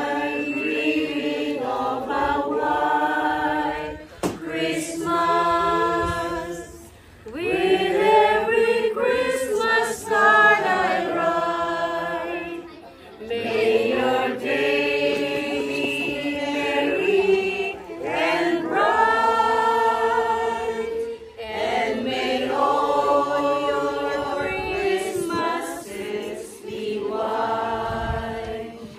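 A mixed group of men and women singing together from song sheets, in sung phrases a few seconds long with short breaks for breath between them.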